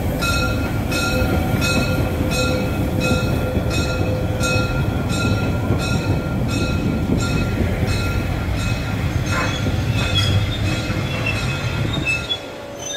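Narrow-gauge railway carriages rolling past close by, with a steady low rumble of wheels on rail. Over the first few seconds a ringing wheel squeal pulses about twice a second, then fades, leaving the rumble. The rumble drops away near the end.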